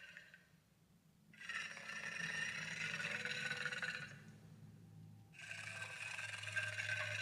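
Kaiju roar sound effect: the tail of one call fades out just after the start, then two long calls of about three seconds each follow, separated by about a second's pause, the second still going at the end.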